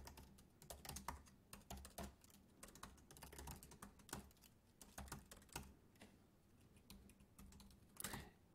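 Faint typing on a computer keyboard: irregular keystrokes, close together for most of the first six seconds, then a few scattered taps and a short cluster near the end.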